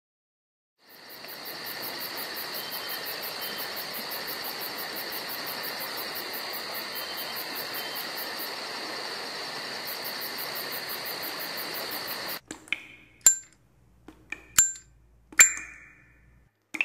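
A steady, high-pitched hiss of background ambience with a fast faint pulsing on top, cutting off suddenly about twelve seconds in. Then a pickaxe strikes rock: about six sharp metallic clinks at uneven intervals, each with a short ring.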